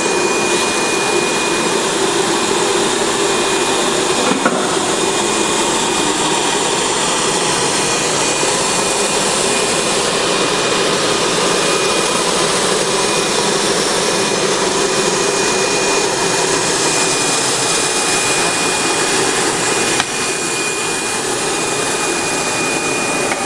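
Filter bag welding machine running steadily: an even, loud whooshing machine noise with a thin high whistle held throughout, easing slightly near the end.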